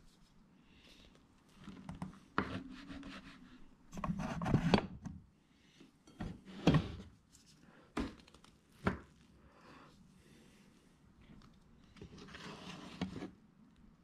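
Kitchen knife slicing down through a cream-cheese-frosted cake onto a wooden cutting board. The blade knocks sharply on the wood four or five times in the middle, with scraping and rubbing as it saws through and is slid under the slice near the end.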